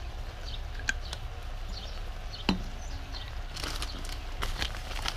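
Sweet-and-sour stir-fry bubbling and sizzling quietly in a wok over a charcoal stove, with scattered small crackles and ticks that grow thicker past the middle. A steady low hum runs underneath.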